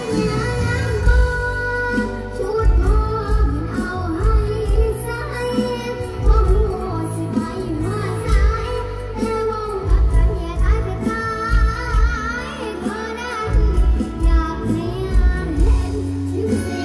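A young girl singing a mor lam song into a microphone, her voice wavering and ornamented, over amplified backing music with a heavy, regular bass beat.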